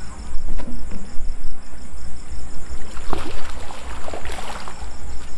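A hooked fish thrashing and splashing at the water's surface about three seconds in, lasting under two seconds, over a steady low rumble.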